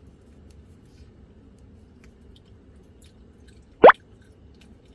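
Chewing on a piece of toasted dried filefish, with faint small crunches. About four seconds in there is one short, loud tone that rises quickly in pitch.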